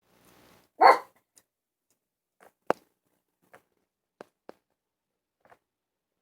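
A dog barks once, loudly, about a second in. A few short, sharp clicks or taps follow over the next few seconds.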